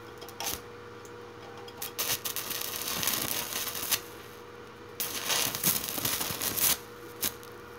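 Small pieces of wire and sheet metal being handled and fitted against the stove's steel body: two stretches of scraping and rattling lasting a couple of seconds each, with a few sharp clicks, over a faint steady hum.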